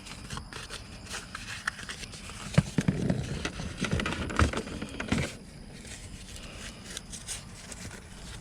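Hands working on a car dashboard cover: scattered light clicks and scrapes, with a run of knocks and dull thuds between about three and five seconds in.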